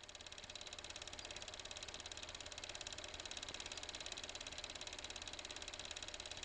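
A film camera or projector mechanism running: a faint, rapid, even ticking clatter of the film being advanced frame by frame.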